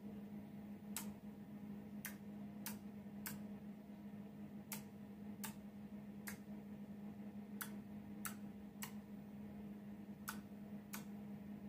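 Relays on a 16-channel relay board clicking on one at a time as each channel is switched, about a dozen sharp single clicks at irregular gaps of roughly half a second to a second and a half. A steady low hum sits underneath.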